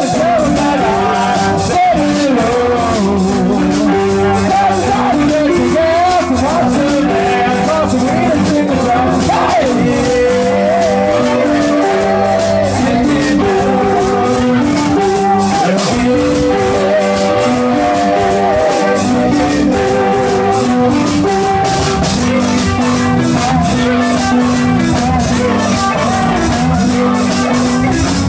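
A live rock band playing: electric guitars, bass, keyboard and a drum kit, with a steady beat.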